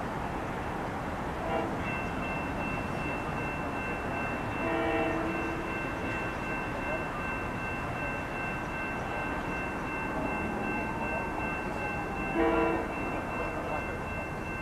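Leslie RS3M air horn on an approaching SEPTA Silverliner IV electric train sounding for road crossings: a brief blast about a second and a half in, a longer one around five seconds, and the loudest, nearest blast near the end. Under the blasts is steady background noise with thin high steady tones.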